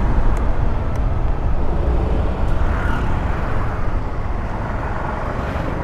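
Steady wind and road rush from riding a motorbike along a street, the wind rumbling heavily on the camera's microphone.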